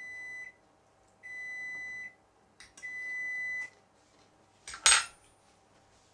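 An electronic beeper sounds three long, steady, high beeps about a second and a half apart. About five seconds in comes a sharp metallic clatter, the loudest sound, as a fork is set down on the chopping board.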